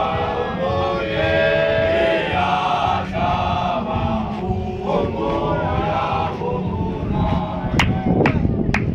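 Group of Zion Christian Church men chanting a hymn together in harmony, several male voices sustaining and bending the tune. Near the end there are a few sharp knocks.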